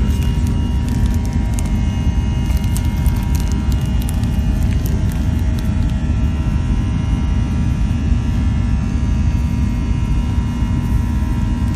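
Airbus A321 cabin noise in flight: a steady low drone of engines and airflow, with a few faint steady whining tones over it. A few faint clicks in the first three seconds.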